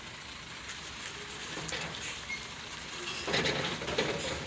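Excavator working, its engine a steady mechanical rumble, with a louder rattling clatter lasting about a second near the end.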